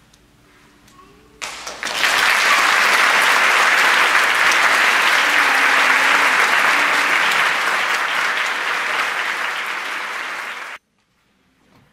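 Concert-hall audience applauding, breaking out about one and a half seconds in and cutting off abruptly near the end.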